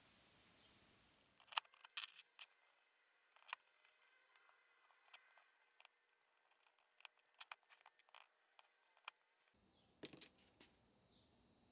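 Small metal compressor parts clicking and clinking as they are handled: valves being worked out of a Saylor-Beall 705 two-stage compressor's cylinder head and set down on the workbench. The clicks come irregularly, several close together about two seconds in and a few more near the end.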